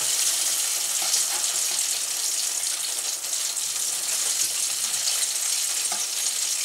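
Hot oil sizzling in a frying pan as potato-starch-coated chicken strips deep-fry: a steady high hiss.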